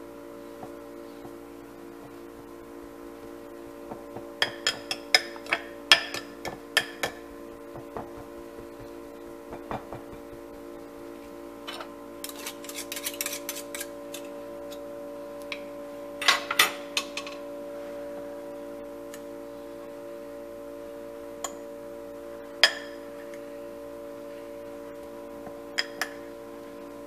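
A metal fork clinking and scraping against a glass pie dish while mashing boiled potatoes: a run of sharp clinks a few seconds in, a rapid flurry about halfway through, then scattered single clinks. Under it, a steady hum of several held tones.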